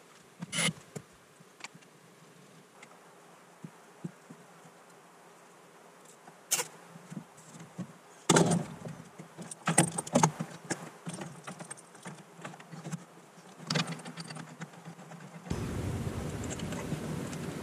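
Handling noise: scattered clicks, then irregular rattling and clatter as a coiled black cable and its plug are picked up and worked loose. Near the end a steady low hum comes in.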